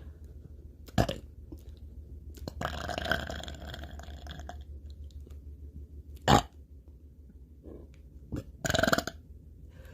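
A woman burping several times. There is a short burp about a second in, a longer drawn-out one around three seconds, the loudest, a short one, just past six seconds, and two more near the end.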